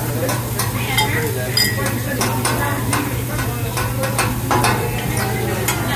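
Steak sizzling on a hot teppanyaki griddle, with the chef's metal spatula and fork clicking and scraping against the steel plate many times. A steady low hum runs underneath.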